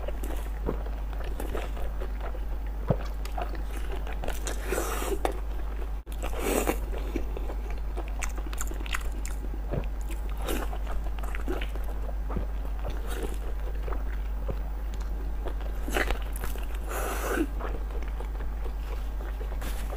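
Close-up eating sounds of a tender, sauce-coated blood sausage being bitten and chewed: soft wet mouth noises and small clicks, over a steady low hum.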